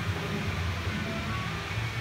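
Background music with a strong bass line, playing steadily.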